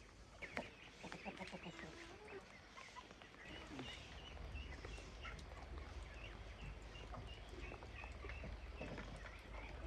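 Chickens clucking, with many short high cheeps scattered throughout. A steady low rumble comes in about a third of the way through.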